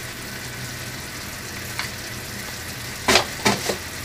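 Creamy carbonara sauce sizzling in a stainless steel wok as it is stirred with a metal spatula. The spatula scrapes and clinks against the pan once about two seconds in and several times in quick succession near the end.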